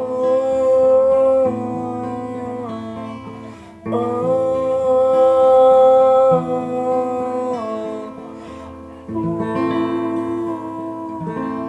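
Music with acoustic guitar accompaniment: a melody line plays long held notes in three phrases.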